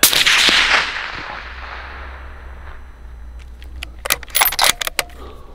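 A single gunshot, its echo rolling away over about two seconds. About four seconds in comes a quick cluster of sharp clicks and knocks.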